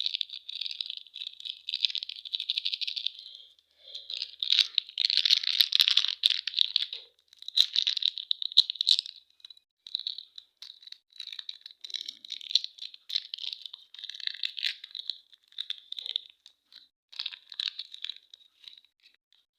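Crinkling, rustling and tearing of plastic candy wrappers and packaging being handled and opened, in bursts of crackle with sharp clicks and short pauses between them.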